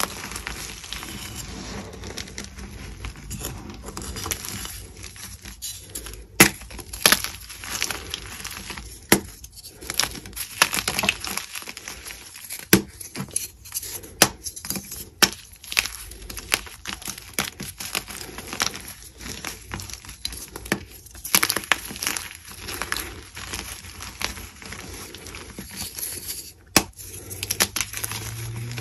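Pink-dyed gym chalk crumbling and crunching in bare hands, with frequent sharp snaps as blocks break apart and crumbs fall into loose powder.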